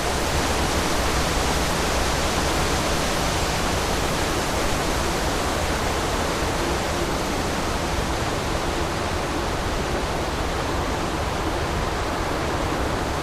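Wind rushing over the microphone: a steady hiss with a heavy low rumble underneath.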